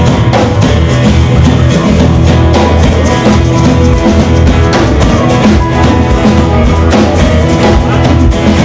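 Live rock band playing an instrumental passage without vocals: guitar over a steady drum-kit beat, loud and continuous.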